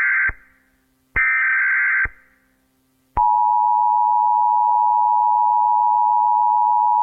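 Emergency Alert System tones: the tail of one burst of the SAME header's warbling data tones, a second full burst about a second in, then after a short gap the EAS attention signal, a loud steady two-note tone (853 and 960 Hz together), starting a little past three seconds in.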